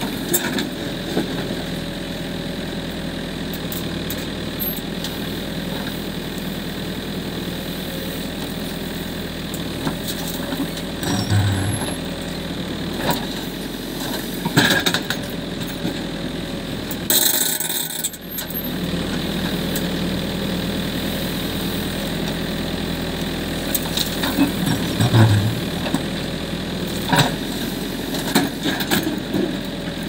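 Backhoe loader's diesel engine running steadily while the backhoe digs into a pile of earth, with occasional sharp knocks and clunks from the bucket and arm. A brief hiss-like burst comes about halfway through.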